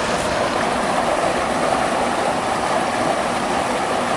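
Steady rush of creek water running over rocks.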